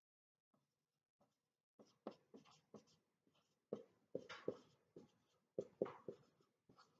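Marker pen writing on a whiteboard: a few faint ticks, then from about two seconds in a quick run of short, sharp strokes as letters are written.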